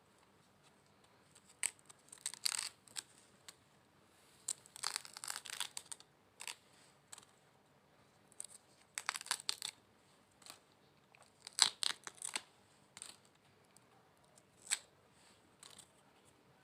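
Snakefruit (salak) being peeled by hand: the brittle, scaly skin cracks and tears in short crackly bouts, about six of them a couple of seconds apart.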